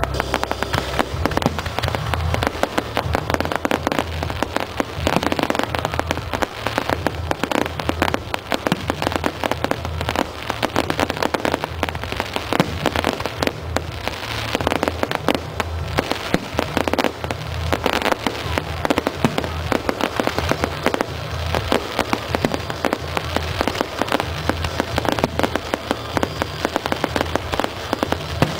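Firework display in full barrage: a continuous, dense crackle of many rapid pops and bangs.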